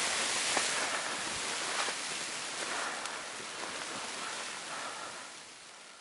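Blizzard wind blowing snow: a strong, steady rushing hiss that fades down over the last couple of seconds.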